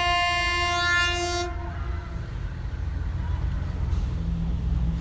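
Philippine National Railways train horn sounding one steady note for about a second and a half, then dying away, leaving the low rumble of the diesel train.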